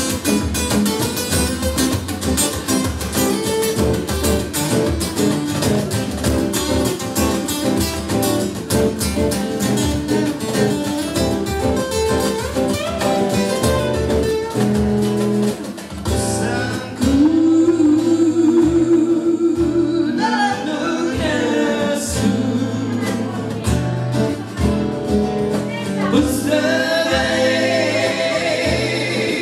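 Live acoustic guitars strummed together in a steady, busy rhythm. A singing voice comes in over the guitars in the second half.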